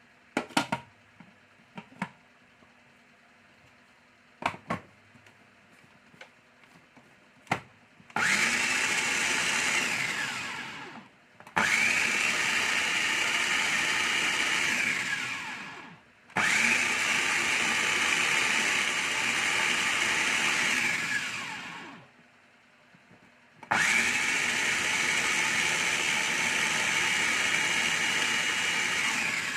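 Electric food chopper blending molokhia (jute mallow) in four runs of a few seconds each, the motor spinning up at the start of each run and winding down at the end. A few clicks and knocks come before the first run, about eight seconds in.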